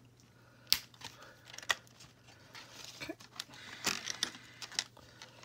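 Small hand nippers snipping through plastic fasteners that hold a doll to its packaging: several sharp separate clicks, with plastic crinkling in between.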